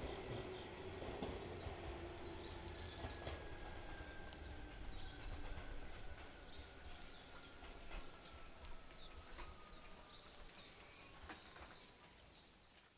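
Quiet outdoor ambience: a steady high-pitched insect drone with scattered short bird chirps, a faint low rumble and a faint tone slowly falling in pitch, fading out at the very end.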